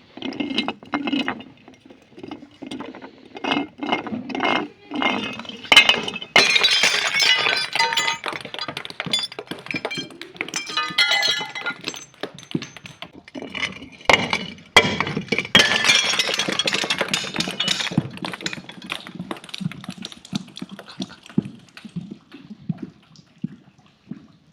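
Glass being crushed and broken: a run of knocks, then sharp cracks about six seconds in and again around fourteen seconds. Each crack is followed by dense crunching and tinkling of shards that tapers off near the end.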